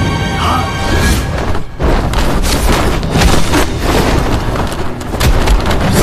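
Film score music under heavy booming impact sound effects of a magical fight. After a brief drop about a second and a half in, a dense run of booms and hits follows.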